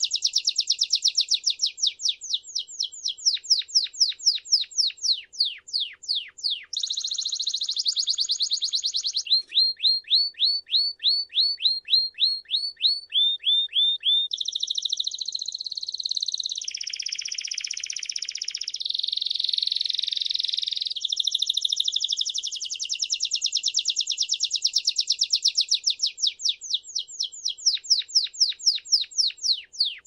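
A domestic canary (Belgian canary) singing a long, unbroken song. It moves through rolling tours: runs of quick, high, downward-sweeping notes at about three to four a second, a buzzier rolling trill in the middle, and a very fast trill before the quick notes return near the end.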